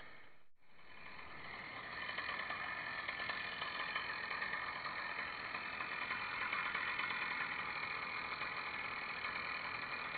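A small petrol engine running steadily at low revs. The sound drops out for a moment about half a second in.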